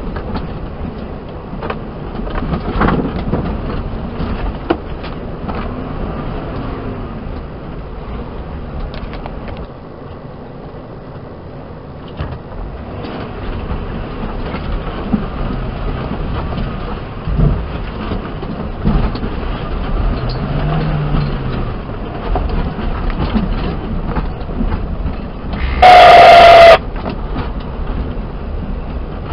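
Suzuki Jimny 4x4 crawling at low speed over a rocky track: its engine running under load, with frequent knocks and rattles as the wheels and body jolt over stones. Near the end a loud horn sounds for about a second.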